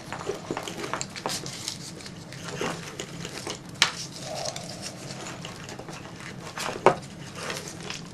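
Tape being wound by hand around an automotive wiring harness: light irregular crackling and rustling of tape and wires, with two sharp clicks, about four and seven seconds in.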